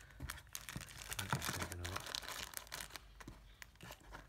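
Thin clear plastic bags crinkling and rustling in the hand in quick, irregular crackles, as phone accessories still sealed in plastic are handled.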